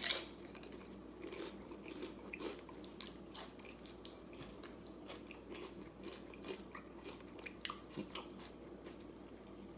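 A person biting into and chewing crunchy tortilla-chip nachos close to the microphone. There is one crisp loud bite at the start, then faint, irregular crunches as the chips are chewed.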